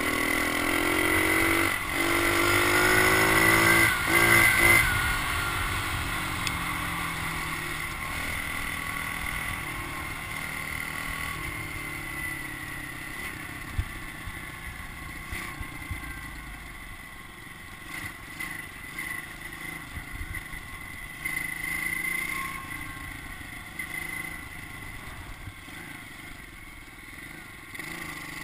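110cc pit bike engine revving up hard under acceleration for the first five seconds, with a short drop in revs about two seconds in, then running quieter at steady lower revs as the bike rolls along.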